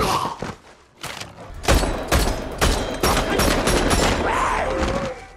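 Rapid handgun fire from a pair of pistols, many shots in quick succession, with a brief lull about a second in before the shooting picks up again.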